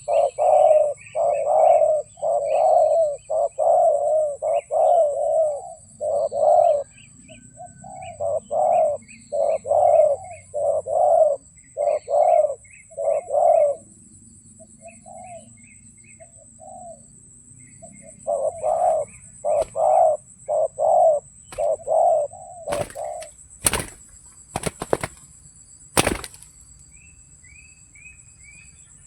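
Spotted dove (terkukur) cooing, a run of repeated low coos in several phrases. A pause follows, then another run, then a few sharp cracks a little after the middle of the second half.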